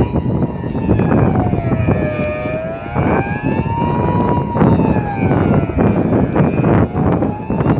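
Outdoor civil-defence warning siren sounding a wailing tone that rises and falls, one full up-and-down cycle about every four seconds. This is the rising-and-falling general-alarm signal of the Swiss siren test. A heavy rumble with frequent knocks from wind and handling on the phone's microphone runs under it.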